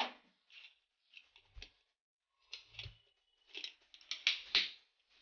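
Plastic lid being fitted and pressed down onto a mixer-grinder jar: a series of light clicks, taps and short scrapes, coming thickest and loudest near the end.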